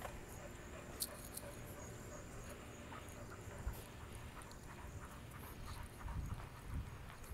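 A dog being walked on a leash over pavement: faint footsteps with a few light clicks, and a couple of low thumps near the end.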